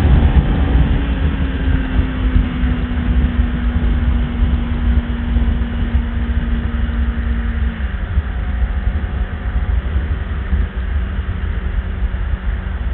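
Motorcycle riding at highway speed, heard through a Bluetooth helmet headset mic: a heavy, steady rumble of wind and engine from the 2016 Kawasaki Ninja 650 ABS's parallel-twin. A steady drone in the mix drops away about eight seconds in.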